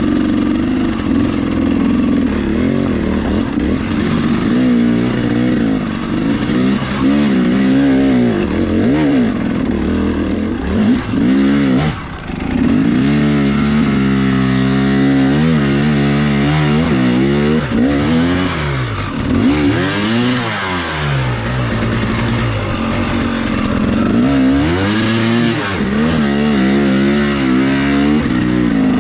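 KTM 300XC-W 300 cc two-stroke dirt bike engine under hard enduro riding, the revs rising and falling over and over as the throttle is worked, with a short drop about twelve seconds in and a few brief bursts of hiss and clatter.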